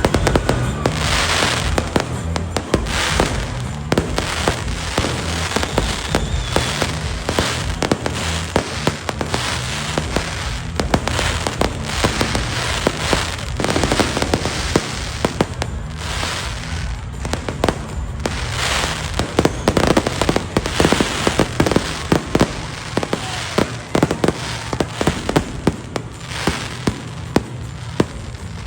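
Aerial fireworks bursting and crackling in quick succession, with steady bass-heavy music playing underneath.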